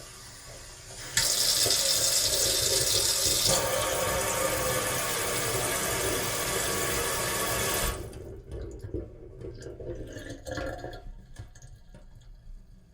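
Sink faucet running. A light flow jumps to a full stream about a second in, then eases to an uneven trickle with drips about eight seconds in.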